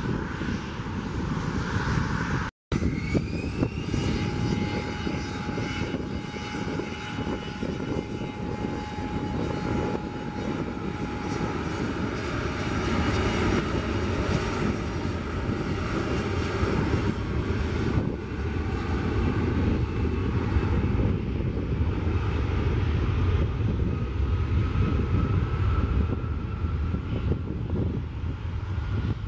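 Jet engines on the airfield: after a brief dropout near the start, the two rear-mounted turbofans of a Bombardier CRJ regional jet on the runway whine, rising in pitch for about a second and then holding steady, over a low rumble that grows louder in the second half.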